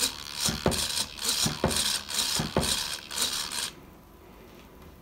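Rattling and clicking of light plastic model parts being handled, in a string of short bursts that stops a little before four seconds in.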